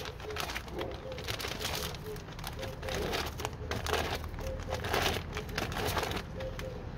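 A crumpled sheet of glossy printed paper crinkling in the hands in irregular bursts as it is scrunched and pressed and lifted on wet spray paint, loudest in the second half.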